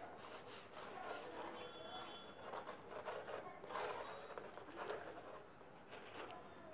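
Faint scratching and rustling as the nozzle of a glue tube is worked against corrugated cardboard, in irregular small strokes.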